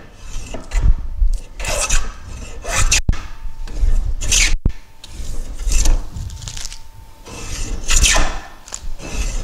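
Metal hand bench plane cutting along the edge of a wooden board in a series of strokes, each a scraping swish of the blade taking off a shaving as the edge is trued down to a gauge line.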